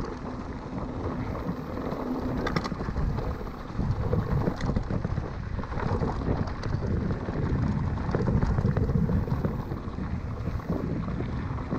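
Wind buffeting the camera microphone while a mountain bike rolls over a rough dirt-and-gravel track, with low rumbling and scattered small clicks and rattles from the bike.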